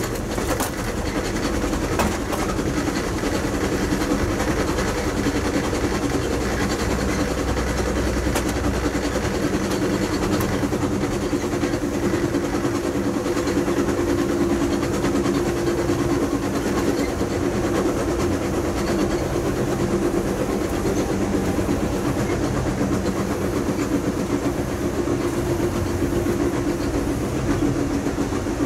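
Amtrak passenger train running at speed, heard from inside the rear car: a steady rumble of wheels on rail, with a few sharp clicks in the first couple of seconds.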